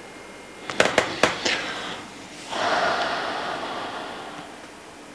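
A few short clicks, then a man's long breathy exhale through the nose and mouth, a sigh that lasts about two seconds and fades out.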